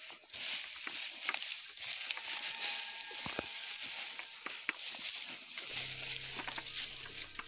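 Rustling and crackling of tall grass and weeds as someone walks through them, over a steady high hiss. A low steady hum comes in about six seconds in.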